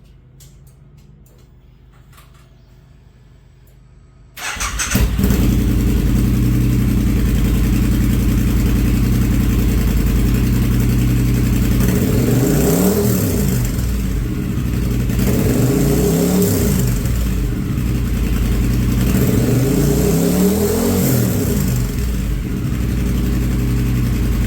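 A Triumph Speed Twin 900 parallel-twin engine starts about four seconds in and settles into a steady idle through TEC slip-on exhausts with the baffles removed. It is then revved and let fall back three times, in the second half.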